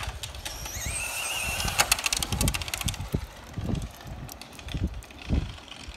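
Electric RC drag car's motor whining and rising in pitch as it accelerates away, followed by a quick run of rapid ticks and some irregular low rumbling.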